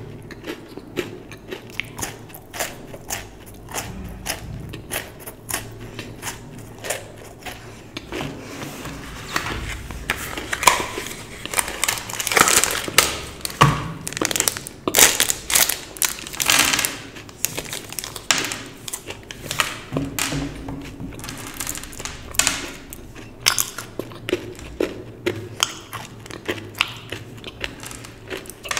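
Close-up mouth sounds of chocolate being bitten and chewed, a dense run of small crunches and clicks. Through the middle, a paper chocolate wrapper is crinkled and torn open, the loudest part, before the chewing and snapping of chocolate return near the end.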